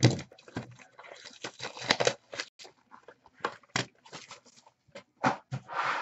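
Packaging being handled and opened: plastic wrap and cardboard of a trading-card box rustling and crinkling, with many light taps and knocks.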